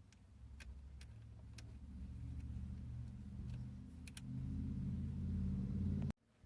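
Scattered light metallic clicks from a micro ratchet turning out a Phillips screw, over a low rumble that builds gradually and cuts off abruptly near the end.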